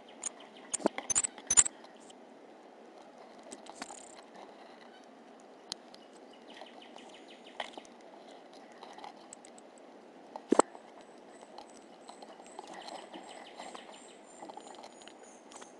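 Pygmy marmosets' hands and claws tapping and knocking on a plastic treat station close to the microphone: a cluster of sharp knocks about a second in and a single loud knock about ten seconds in, over a steady background hiss. A string of faint, evenly spaced high chirps runs through the last few seconds.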